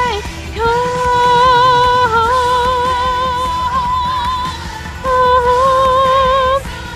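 Pop song with a singer holding two long wavering notes over the band accompaniment: one from about a second in, and another about five seconds in.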